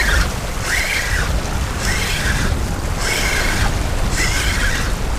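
Fishing reel being cranked in against a hooked fish, a short whirring burst about once a second with each turn of the handle. Wind rumbles on the microphone and surf washes over the rocks underneath.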